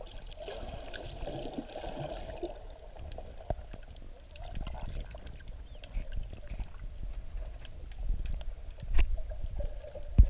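Muffled water sloshing and gurgling heard from underwater, over a low rumble, with scattered small clicks and a few louder knocks near the end.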